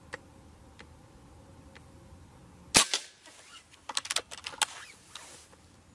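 Reximex Zone 5.5 mm (.22) regulated PCP air rifle with a shrouded barrel firing one sharp shot about three seconds in. About a second later comes a quick run of metallic clicks as the rear cocking lever is worked to chamber the next pellet.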